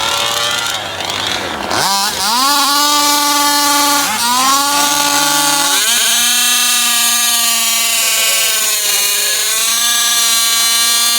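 Small two-stroke gas engine of a large-scale RC car. It revs up sharply about two seconds in, dips and climbs again near four seconds, then holds a steady high pitch at full throttle for the rest of the run.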